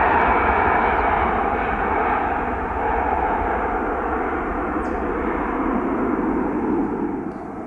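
Boeing 757-200 jet engines, a loud steady rushing noise that slowly fades and drops off further near the end.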